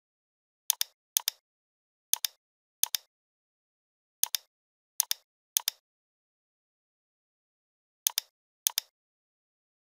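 Computer mouse clicking: nine sharp clicks, each a quick double tick of button press and release, irregularly spaced, with a gap of over two seconds near the middle.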